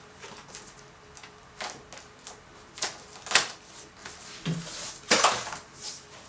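Plastic protective sheet being peeled off a monitor screen and pulled away, crackling and rustling in irregular bursts, loudest about five seconds in.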